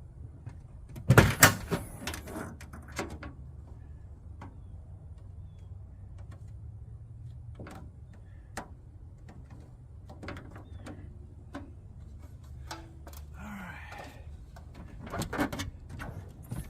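Knocks, clanks and clicks from handling and bolting down an aluminium roof storage box and its hardware. There is a loud clatter about a second in, scattered taps after it, and another group of knocks around fifteen seconds in.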